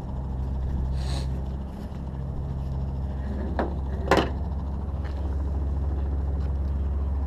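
Rope rustling and handled as a wing tiedown is untied from its ring, with a sharp knock about four seconds in. A steady low engine drone runs underneath throughout.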